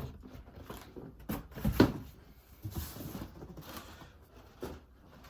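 Shoeboxes and packaging being handled: a few knocks and taps, the loudest about two seconds in, with some rustling of paper.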